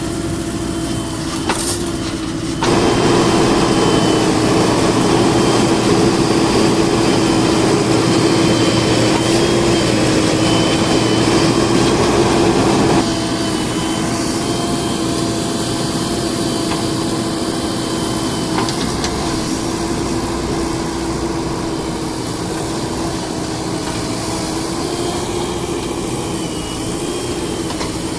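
Diesel engine of heavy earthmoving machinery running steadily with a constant hum. It gets louder about three seconds in and drops back abruptly about ten seconds later.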